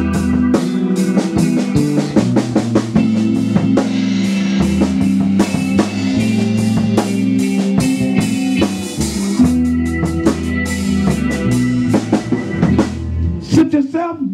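Live band playing an instrumental groove with no vocals: drum kit keeping a steady beat under electric guitar played through an amplifier.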